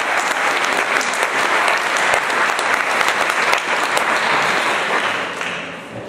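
Audience applauding as performers come on stage, a steady patter of clapping that fades away about five seconds in.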